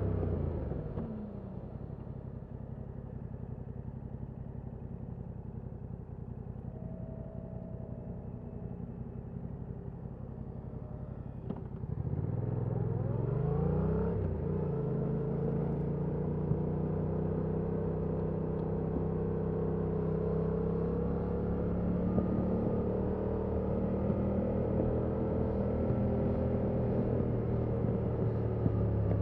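Stock Yamaha MT-07's 689 cc parallel-twin engine on the road: it winds down and runs low and quieter for about ten seconds, then revs up about twelve seconds in and settles into a steady cruising note whose pitch drifts gently up and down.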